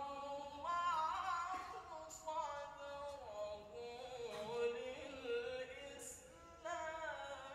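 A man reciting the Quran in the melodic tilawah style: long drawn-out notes with ornamented turns and glides in pitch, with a fresh phrase beginning about a second in and again near the end.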